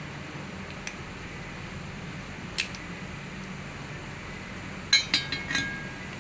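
Small metal parts of an engine water pump seal clinking against each other and the pump housing as they are handled: one sharp click a little over two seconds in, then a quick cluster of clinks with a short ring about five seconds in. Steady low hum underneath.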